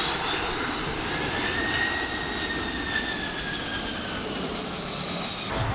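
Jet airliner engines passing close, a rushing roar with a high fan whine that climbs slightly and then sinks in pitch. The sound cuts off abruptly near the end.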